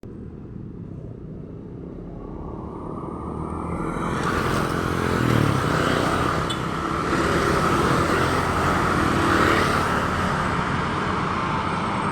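Road traffic: a motor vehicle approaching, its engine and tyre noise growing louder over the first few seconds and then staying loud.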